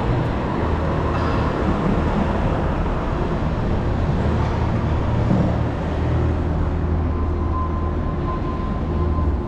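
City street traffic: a steady low rumble of vehicles, with a thin high tone coming in near the end.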